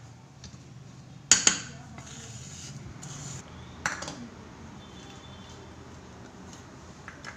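Cookware knocking: a sharp clatter of the pan about a second in and a smaller knock near four seconds, over a low steady hum that stops about three and a half seconds in.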